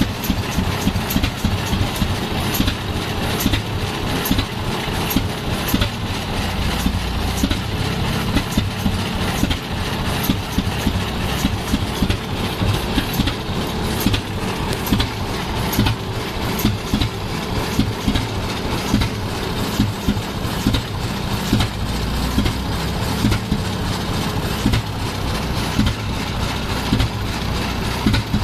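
1921 Rumely OilPull tractor's kerosene-burning engine running, a rapid uneven knocking over a low rumble.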